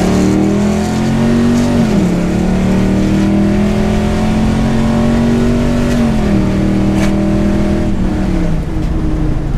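Gen 4 6.0-litre LS V8 in a squarebody Chevy pickup, heard from inside the cab under way. The engine note climbs, drops with a gear change about two seconds in, holds steady, then steps down in pitch twice near the end as the six-speed automatic shifts.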